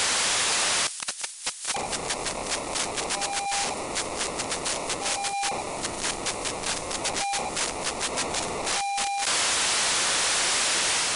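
Narrow-FM radio receiver audio on a pager frequency near 931.85 MHz with the squelch off: steady static hiss, then from about a second in a fast rasping pager data burst with a few short beeps and brief dropouts, which gives way to plain static again near nine seconds.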